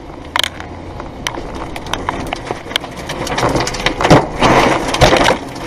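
Rain and wind-blown debris pelting a car during a tornado, heard from inside the car: many sharp hits on the body and windshield over a rushing wind that grows much louder about three and a half seconds in as the tornado reaches the car.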